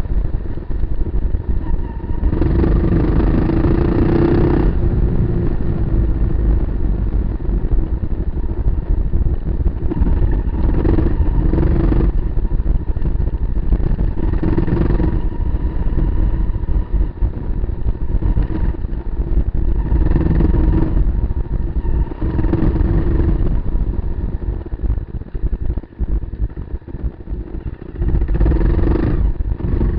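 Kawasaki KLR250 single-cylinder four-stroke engine ridden off road, revving up in repeated bursts every few seconds over a constant heavy rumble. It eases off for a few seconds near the end, then revs up once more.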